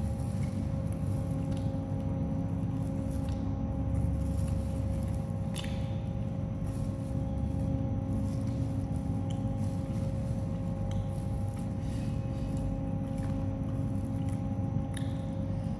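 A person eating a boxed rice meal, with faint chewing and a few scattered clicks of food or utensils, over a steady low rumble with a constant hum.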